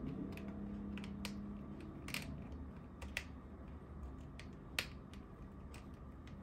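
Irregular sharp clicks and taps, about a dozen at uneven intervals, from hands working at a computer's keyboard, mouse and USB plugs, over a low steady hum.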